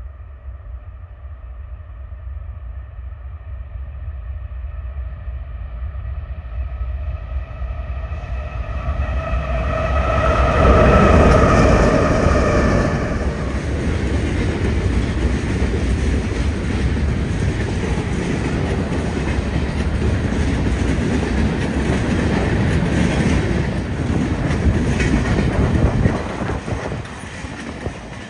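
Diesel freight train passing: the locomotives' steady tone grows louder as they approach and peaks about eleven seconds in as they go by. It is followed by the steady rumble and clickety-clack of covered hoppers and boxcars rolling past, which drops away near the end.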